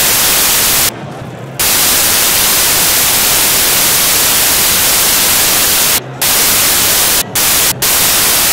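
Loud, even hiss of static noise filling the whole sound track, broken by brief drops about a second in and three times near the end, where a faint low hum shows through. It is a fault in the recording or encoding, not a sound of the scene.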